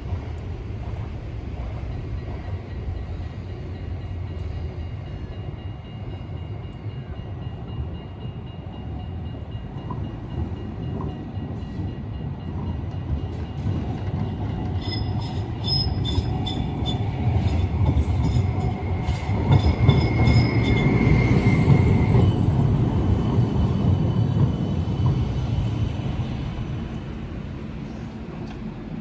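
GVB Urbos 15G tram approaching and pulling into the stop. Its rumble grows louder about halfway through and peaks as it comes alongside, then eases as it slows to a halt. A thin high wheel squeal lasts a few seconds near the loudest point.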